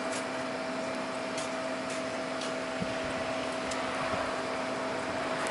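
Steady hiss of the running hot-water line, with a low hum and a higher steady tone under it and a few faint ticks.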